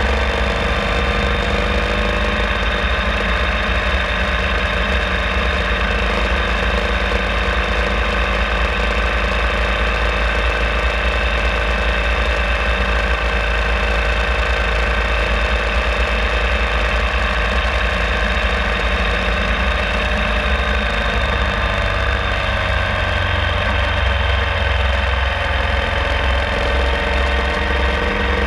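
URAL Classic sidecar motorcycle's air-cooled flat-twin engine running steadily while riding along a street, heard from the bike.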